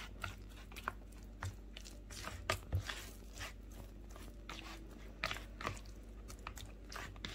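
Moist semolina dough for harcha being squeezed and mixed by hand in a bowl, giving irregular short wet clicks as the semolina takes up warm milk and melted butter.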